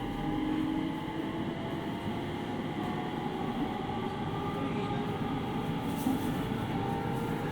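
JR East 701 series 5500 electric multiple unit running, heard from inside the passenger car: a steady rumble of wheels on rail with held tones that drift slowly in pitch. A faint tick comes near the end.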